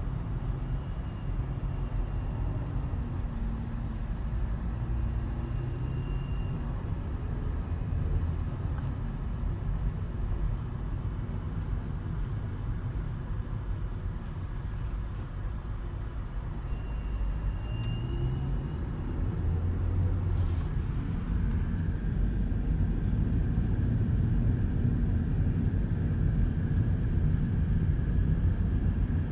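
Opel Astra K 1.6T running on the road, with the aircon squealing at the speed of the engine. The squeal comes briefly a few times, then holds steady from about two-thirds of the way through. The squeal happens when the A/C is maintaining cabin temperature, mostly at part throttle between 1800 and 2500 rpm.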